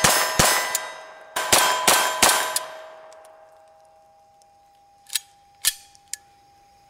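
Chiappa 1911-22 pistol firing .22 LR rounds: a quick string of sharp shots in the first two and a half seconds, then three quieter shots about five to six seconds in. A steady ringing tone lingers and fades after the shots.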